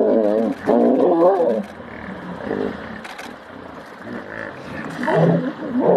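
Hippopotamus calling: loud, wavering pitched calls in the first second and a half, and again about five seconds in.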